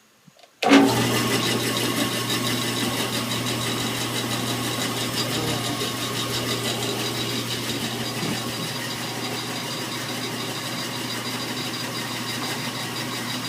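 Ridgid BS14002 14-inch bandsaw switched on about half a second in and then running steadily, a low motor hum under a loud mechanical din. The saw is untuned and vibrating so badly that it bounces about a quarter inch on its feet.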